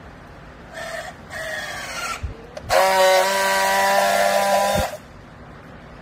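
Battery-powered handheld strapping tool on a plastic bale strap: two short motor whirs as it tensions the strap, the second slowing as the strap tightens. Then comes a louder steady buzz for about two seconds as it friction-welds the strap, ending in a click.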